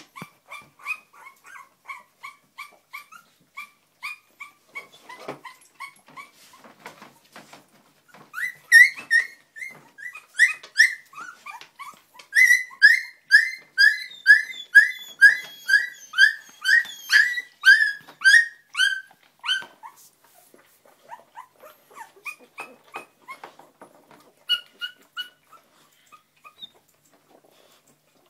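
Young Springer Spaniel puppies whimpering and squealing in a run of short, high-pitched cries, about two a second. The cries turn loud for several seconds in the middle, then drop back to soft whines.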